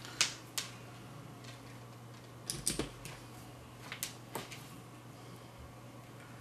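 A few sharp, irregular clicks and small knocks as a crocodile-clip test lead is handled and snapped onto a breadboard's terminal post, over a faint steady low hum.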